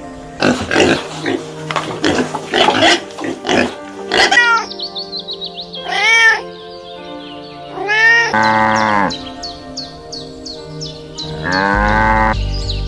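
A series of short animal calls, several different voices one after another, over steady background music.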